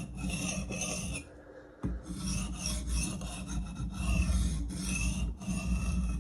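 A thick steel blade being stroked back and forth over a sharpening stone by hand, a rhythmic grinding scrape about two strokes a second, with a short pause a little after one second in.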